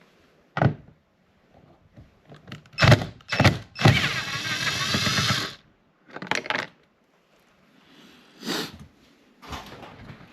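A cordless power driver whirring for about a second and a half, plausibly backing out the 10 mm bolt that holds the door trim panel, with sharp knocks and clicks of tools being handled before and after.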